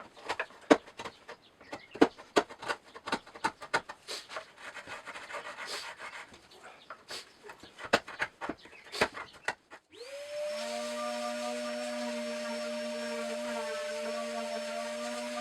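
Irregular knocks and clicks of timber being handled and worked, then about ten seconds in an electric power tool spins up and runs steadily.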